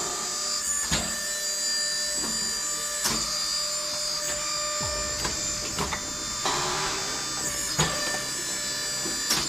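Powered log-splitting machine running with a steady whine, with sharp knocks and cracks of logs splitting every second or two.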